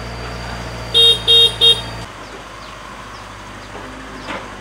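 Three short, loud vehicle-horn toots in quick succession over the steady low hum of a running engine at an excavator loading a dump truck. The engine hum stops abruptly about two seconds in, leaving quieter background noise.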